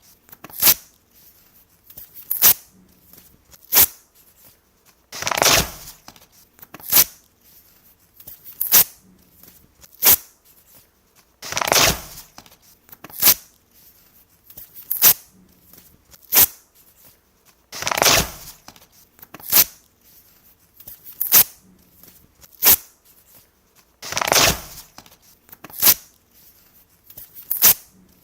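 Paper being torn repeatedly: about twenty separate rips, each a short burst of ripping noise, some drawn out over half a second and others short and sharp, with brief pauses between them.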